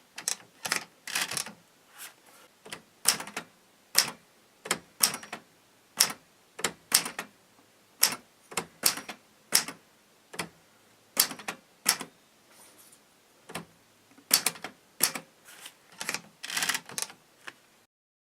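Keys of a 1940s Remington Rand manual typewriter striking the platen one by one in irregular, sharp clacks, about one to two a second, with a short pause partway through.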